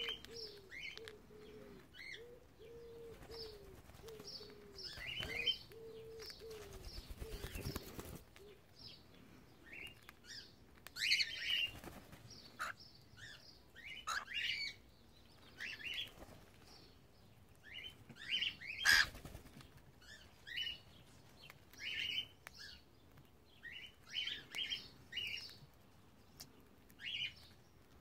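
Cockatiels chirping in short, scattered calls, with a low note repeated quickly over the first several seconds.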